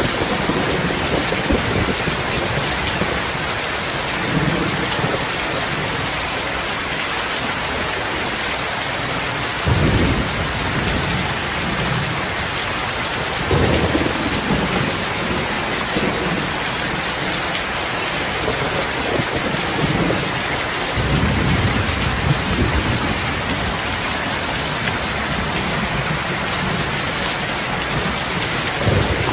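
Heavy rain falling steadily, with low rolls of thunder swelling up several times: about ten seconds in, again around fourteen seconds, and a longer rumble a little past twenty seconds.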